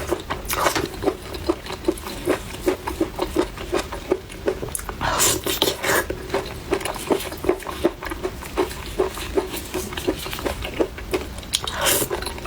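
Close-miked chewing of spicy chicken: short wet mouth smacks in a steady rhythm of about two a second, with a few louder, noisier bites near the start, about five seconds in and near the end.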